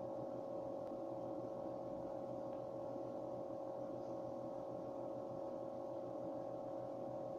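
Steady electrical hum made of several constant tones, unchanging throughout.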